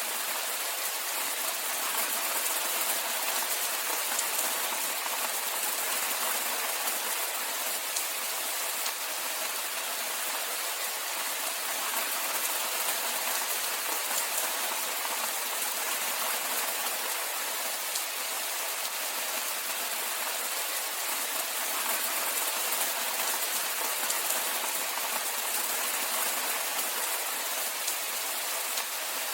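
Steady rainfall: an even hiss of many fine drops pattering on surfaces, with no change throughout.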